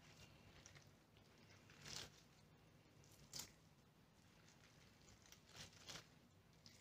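Soaked white fungus (tremella) being torn by hand into small florets: faint, scattered soft tearing and squishing sounds, a few of them about two seconds in, three and a half seconds in and near the end.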